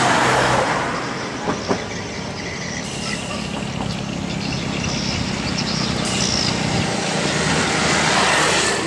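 Road traffic passing close by: a vehicle swells past at the start and another near the end, with a steady low hum of traffic between. Two short clicks come about a second and a half in.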